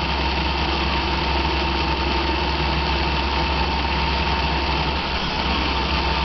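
Roomba robot vacuum running: a steady motor whir with a low hum and a thin high tone, unchanging throughout.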